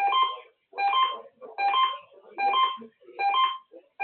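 Repeating electronic alert beeps of the kind heard in Emergency Alert System broadcasts: five short pulses, a little under a second apart, each a chord of several steady tones.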